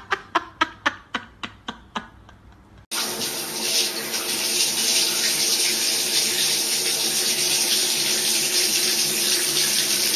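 A quick run of about a dozen sharp knocks, roughly four a second, fading away over the first two and a half seconds. Then, starting suddenly about three seconds in, a bathroom tap runs in a steady stream into a sink.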